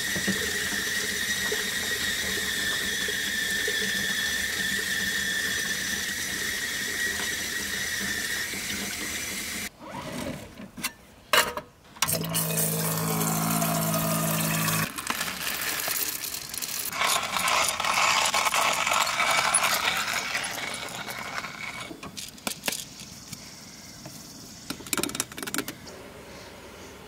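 Tap water running steadily into a sink over a film developing tank for about ten seconds. Then short clatters of handling, a steady hum lasting about three seconds, and scattered knocks that fade toward the end.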